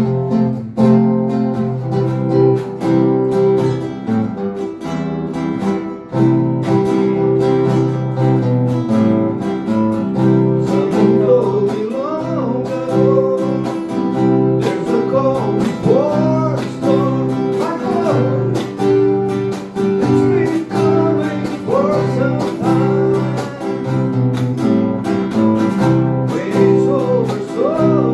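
Acoustic guitar strumming chords, with a gliding melody line, possibly a voice, joining over it from about eleven seconds in.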